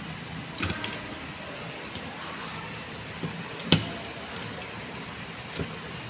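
Scattered light clicks and taps as a screwdriver works the screw terminals of a manual fire alarm pull station's terminal block in its plastic housing. The sharpest click is a little before four seconds in, over steady background room noise.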